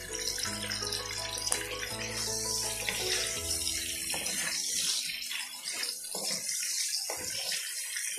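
Camel sausages sizzling in their own fat in a frying pan, a steady high hiss. Background music plays over the first half and stops about four seconds in.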